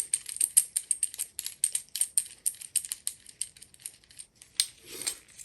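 Fast run of light, sharp metallic clicks, several a second, as a screwdriver works a Phillips-head locking screw on a faucet's supply-line connection.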